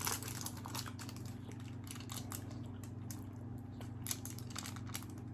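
Faint, irregular clicking and crinkling, likely small plastic being handled while a lime is being readied to squeeze over tacos, over a steady low electrical hum.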